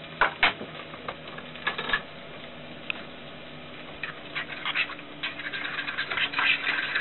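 A fork whisking powdered egg mixed with water in a bowl, with irregular clicks and scrapes against the bowl as the powder chunks are broken up. The strokes get quicker and denser in the second half.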